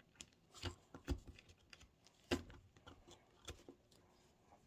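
Faint, irregular taps and scrapes of a small digging tool chipping and clearing loose material from a dig-kit block, about a dozen small knocks at uneven intervals.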